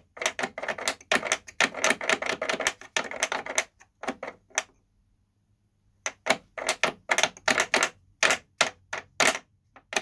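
Rapid, typewriter-like clicking and tapping of a screwed-on metal bracket against the plastic body of a Hoover Turbopower Freedom upright vacuum cleaner as it is flicked by hand. The bracket is a makeshift repair standing in for a snapped-off cord-hook clip. The clicking pauses for about a second and a half midway, then starts again.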